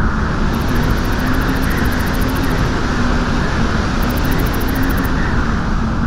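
Strong wind blowing on a beach and buffeting the microphone, a steady low rushing roar, with waves breaking on the shingle underneath.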